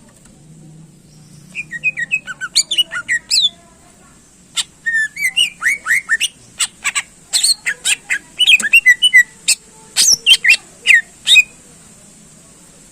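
Cucak ijo (green leafbird) singing in fast runs of loud whistles, chirps and sharp notes. There is a short burst about a second and a half in, then a longer, denser phrase from about four and a half seconds in until near the end.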